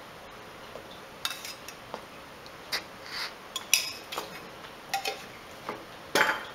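Wooden spatula stirring a thick, sticky rice-flake and oats kesari in a steel pan, scraping and knocking against the pan in irregular short strokes. The loudest scrape comes near the end.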